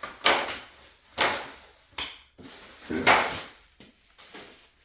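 Packaging being handled and torn open as a sealed plastic body kit is unboxed: four sharp rustling, scraping sounds about a second apart, each fading quickly.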